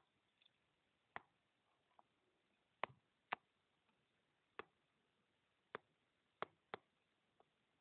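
Faint, sharp taps of a stylus on a tablet screen during handwriting, about ten clicks at irregular intervals.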